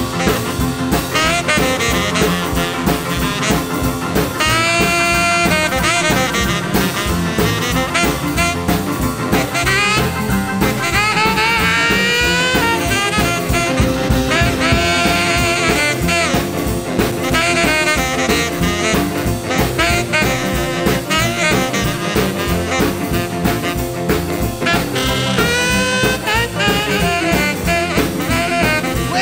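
Background music: jazzy, swing-style tune with brass horns over a steady beat.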